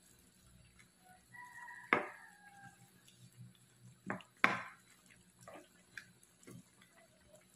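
White plastic spatula stirring noodles and fish balls in broth in a wok, with sharp knocks of the spatula against the pan, the loudest about two seconds in and again about four and a half seconds in, amid soft liquid sloshing and dripping.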